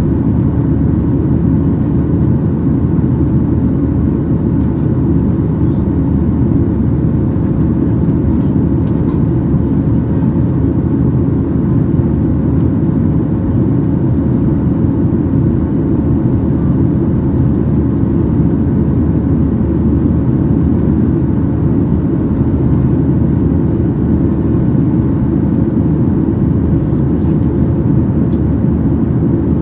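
Boeing 737-800 cabin noise during the climb after takeoff: the CFM56-7B engines and airflow make a loud, steady, deep rumble with a faint steady whine above it, heard from a window seat over the wing.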